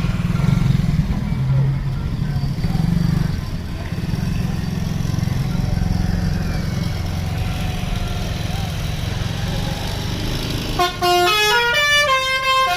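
A bus engine rumbles low and steady. About 11 seconds in, a telolet horn, a set of tuned electric bus horns, plays a quick tune of short notes stepping up and down in pitch.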